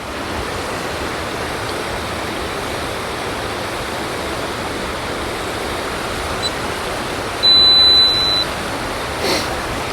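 Steady rush of a large waterfall close by. About three quarters of the way through, a high electronic beep sounds for about a second, louder than the water.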